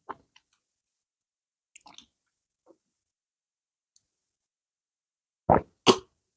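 Close-up eating sounds of pounded yam and banga soup: a few faint wet mouth clicks, then two loud, brief, wet smacks about five and a half seconds in.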